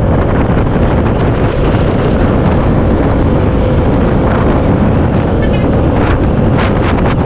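Steady wind rush buffeting an action camera's microphone while riding a Piaggio Vespa VXL 150 scooter at road speed, with a faint steady hum underneath.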